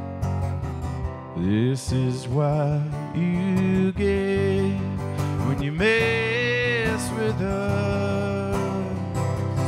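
A man singing live with his own strummed acoustic guitar, the voice sliding between notes and holding one long wavering note about six seconds in.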